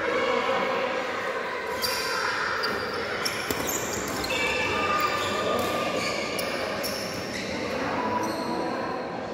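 Badminton doubles rally in a large sports hall: sharp strikes of rackets on the shuttlecock and players' shoes on the court, with voices in the hall.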